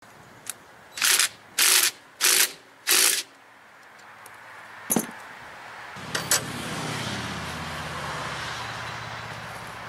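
Four short bursts of clicking from a wrench loosening the nut on a standby generator's oil drain hose, then a few clicks, and from about six seconds in a steady stream of engine oil pouring from the drain hose into a plastic bucket.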